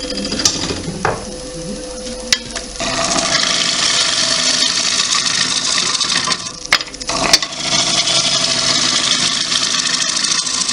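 Turning tool cutting into the inside of a wet cherry-wood bowl blank on a running wood lathe: a steady hiss of shavings over the lathe's hum. The cut eases off twice, about a second in and again a little past the middle, with a few sharp clicks.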